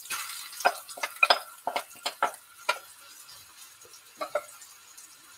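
Marinated chicken pieces tipped from a bowl into a pan of hot coconut oil and chillies, sizzling as they land. A quick string of clicks and knocks against the pan follows over the first few seconds, with two more about four seconds in.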